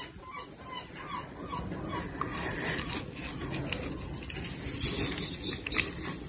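A dog eating: a steady run of small chewing clicks and smacks, with a few faint short squeaks in the first two seconds.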